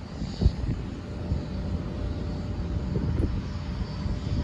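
Embraer E175 jet airliner on approach, its two General Electric CF34 turbofans a distant steady rumble with a faint whine, mixed with gusts of wind buffeting the microphone.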